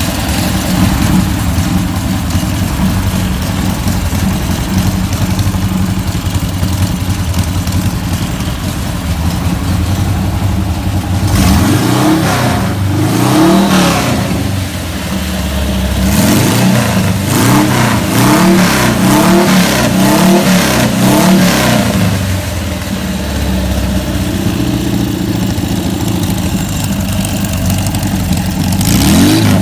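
Volkswagen Beetle's air-cooled flat-four engine idling steadily, then revved up and down a couple of times about eleven seconds in, followed by a run of quick blips of the throttle about one a second, before settling back to a steady idle; revving starts again at the end.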